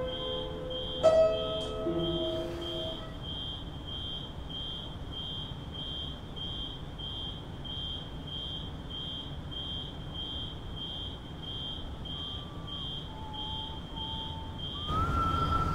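Upright piano: a chord struck about a second in and left to ring out, over a steady high-pitched tick about twice a second that carries on after the piano dies away. A few faint high notes sound near the end, and a louder rushing noise comes in just before it ends.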